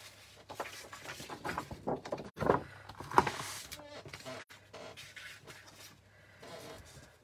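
Chair squeaking several times in irregular creaks, the loudest about two and a half and three seconds in, with paper being slid and handled on a craft mat.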